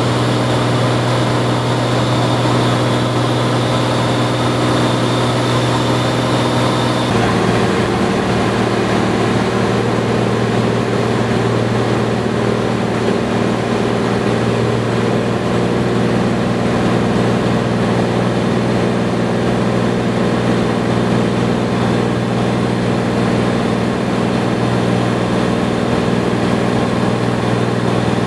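Steady drone of a Cirrus SR22's six-cylinder piston engine and propeller, heard from inside the cabin in flight, with a strong low hum under it. The tone shifts slightly about seven seconds in.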